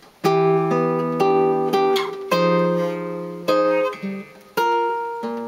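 Guitar playing chord-melody: about seven plucked jazz chords, each struck and left to ring, turning from F minor, the ii chord of E-flat, back into the home key.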